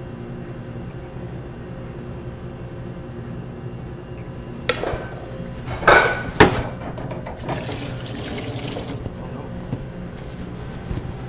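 A few sharp knocks and clatters about halfway through, then a short run of water from a bar sink tap, over a steady low hum.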